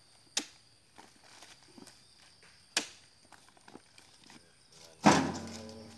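Two sharp knocks about two and a half seconds apart as a pole-mounted metal spike is driven into an oil palm fresh fruit bunch. Near the end, a loud bang that rings on as the bunch lands in the steel tray of a mechanical wheelbarrow.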